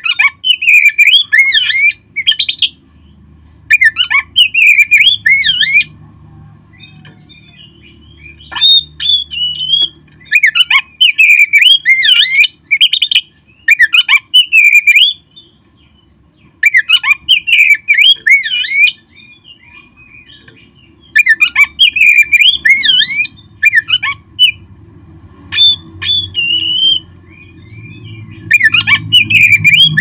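Oriental magpie-robin (kacer) singing: loud, rapid phrases of varied whistled notes, each lasting a second or a few, with short pauses between them.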